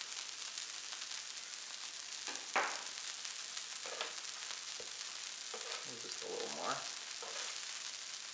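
Arepas de queso frying on a buttered flat griddle, with a steady sizzle throughout. A sharp knock of a spatula against the griddle comes about two and a half seconds in, and a few lighter touches follow.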